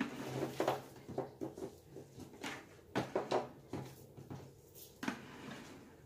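Irregular knocks and scraping of a stainless-steel Crock-Pot slow cooker being turned around on a wooden tabletop.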